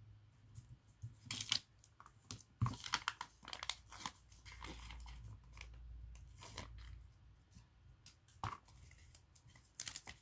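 Paper sheet of adhesive stamp labels rustling and crinkling as labels are peeled off their backing, in a string of short, irregular rips.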